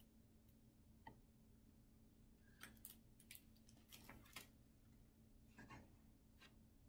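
Near silence with a few faint rustles and ticks of a picture book's paper pages being handled and turned, scattered between about one and six seconds in.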